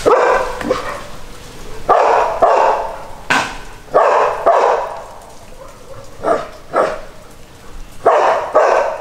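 Dogs barking, about ten loud barks that come mostly in pairs half a second apart, set off by langur monkeys.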